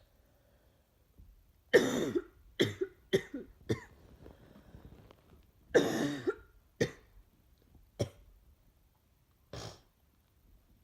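A sick woman coughing in fits: a hard cough about two seconds in followed by four quick smaller coughs, another hard cough about six seconds in, then three single coughs spaced out toward the end.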